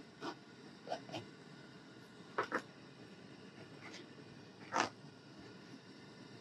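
Kitchen knife chopping green onions on a cutting board: a handful of short, separate taps at uneven intervals, the loudest a quick double tap about two and a half seconds in and another near five seconds.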